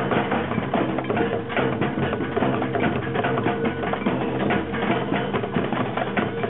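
Music of drums and percussion: many fast, dense strikes over a few steady held tones.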